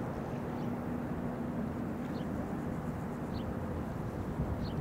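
Steady low outdoor rumble with a faint constant hum underneath, and short high bird chirps recurring about every second.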